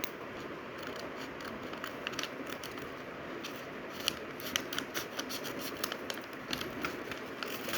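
A small box or package being opened by hand: a run of light, sharp clicks and scratching of packaging, growing busier about halfway through.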